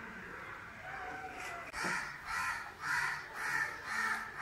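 A crow cawing repeatedly, about seven harsh caws at roughly two a second.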